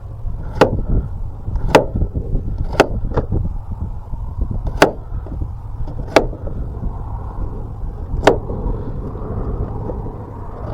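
A knife chopping as a potato is diced: six sharp knocks at uneven spacing, roughly one to two seconds apart, over a steady low rumble.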